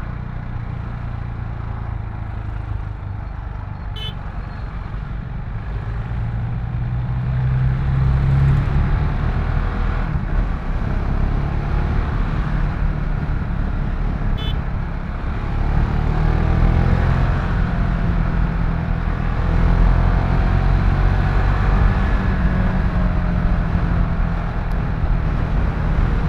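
KTM Duke 690's single-cylinder engine running on the move, its pitch rising as it accelerates a few times and growing louder in the second half.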